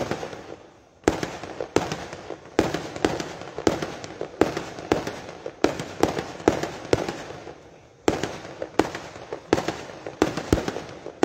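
Aerial fireworks going off: a rapid string of sharp bangs, about two a second, with crackling between them. The bangs pause briefly just after the start and again around eight seconds in.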